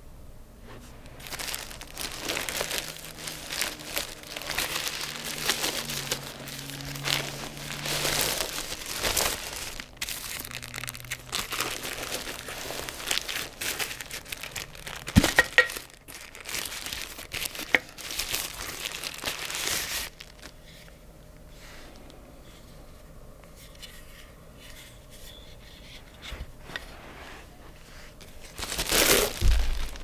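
A plastic bag crinkling and rustling as it is unwrapped and pulled off a copper gooseneck kettle, with a sharp click about halfway. The rustling then goes quieter for several seconds, before a last loud rustle near the end.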